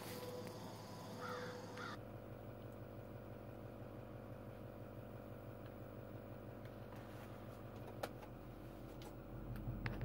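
Faint outdoor air with a bird calling briefly about a second in, then a steady low hum inside the pickup truck's cab from its engine idling, with a single click about eight seconds in.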